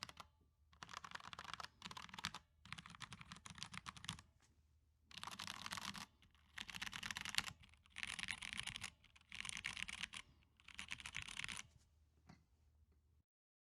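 Typing on a MONOKEI Standard mechanical keyboard with stock, unmodded MX Brown tactile switches: rapid keystroke clatter in bursts of about a second, with short pauses between them. The typing stops about two seconds before the end.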